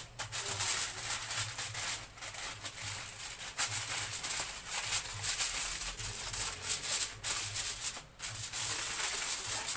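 Aluminium foil crinkling and rustling as hands press and tuck it over a foil tray, with a few brief pauses.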